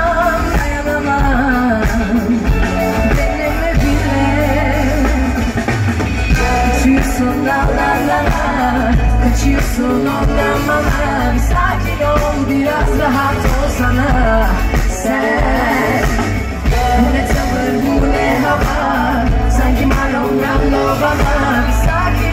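Live pop band with electric guitars, bass, drums and keyboards playing loudly with a female singer, with a strong bass, heard from the audience through a phone's microphone.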